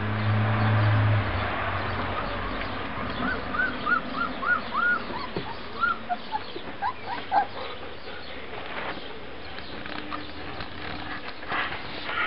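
Three-week-old puppies squeaking and whimpering while they nurse: a run of short, high, arched squeaks, about two a second, from a few seconds in, with a low steady hum in the first second.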